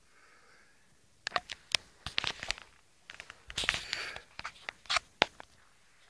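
Handling noise: irregular clicks, crackles and scrapes as the handheld camera is moved about close to its microphone, starting about a second in and stopping shortly before the end.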